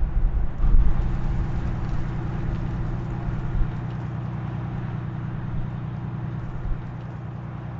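A steady low hum, with heavier low rumbling through the first few seconds.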